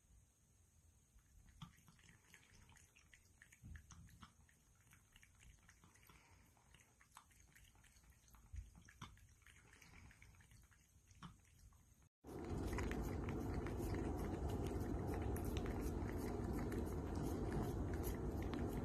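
A cat lapping water from a pet water fountain, faint quick licking clicks. About twelve seconds in a sudden cut brings much louder close-up licking and smacking as a cat licks a squeeze-tube treat.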